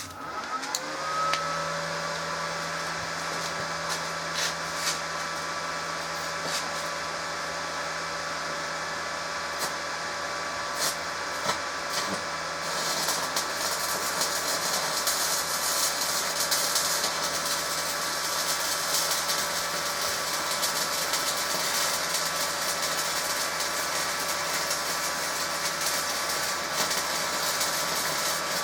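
Resanta SAI 190K welding inverter running, its cooling fan spinning up at the start and then humming steadily. A few sharp clicks come before the middle, and from about halfway a steady crackling sizzle sets in, typical of a stick-welding arc burning on a 3 mm rutile electrode.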